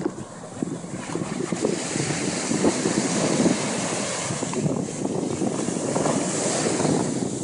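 Surf breaking and washing up the sand, with wind buffeting the microphone in an uneven, gusty rush.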